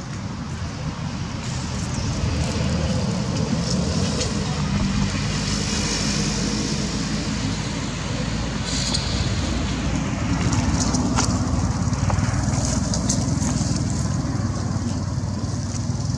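Steady low outdoor rumble, with dry leaves crackling and rustling now and then as small animals move over them.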